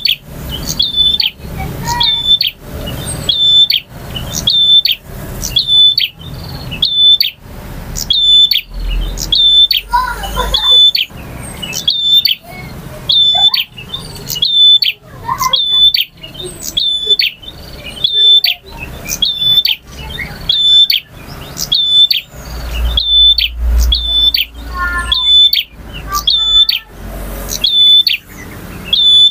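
Male prinia (prenjak) singing a repeated call: one sharp, high note about once a second, each ending in a quick downward flick.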